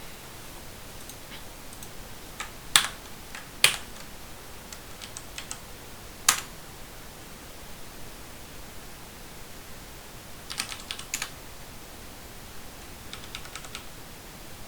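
Computer keyboard being typed on in short bursts of quick light keystrokes, with three louder single key clicks between about three and six seconds in.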